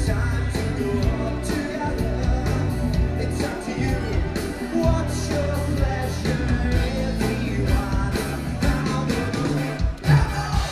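A band playing a song with a singer, over a steady drum beat and heavy bass; the music drops out briefly about ten seconds in.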